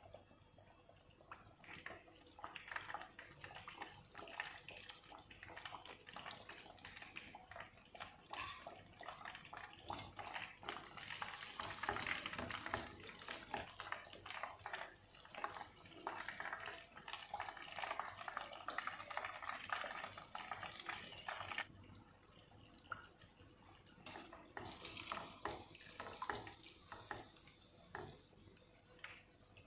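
Breaded chicken cutlet deep-frying in hot oil: a steady sizzle full of small pops and crackles. It drops away sharply about two-thirds of the way through, then picks up again more sparsely.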